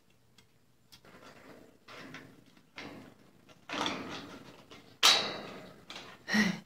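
Scattered rustles and knocks of a white-faced capuchin monkey climbing on ropes and the wire-grid ceiling of her enclosure, the loudest a sharp knock about five seconds in.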